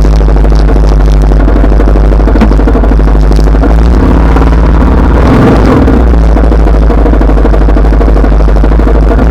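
Honda Rebel 300's single-cylinder engine running while riding, loud, with heavy wind rumble on the microphone and a shift in the engine note about halfway through.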